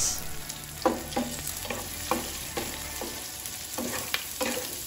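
Salted anchovies, chilies and shallots being stir-fried in a non-stick frying pan: a steady sizzle, with the spatula scraping and knocking against the pan in repeated short strokes.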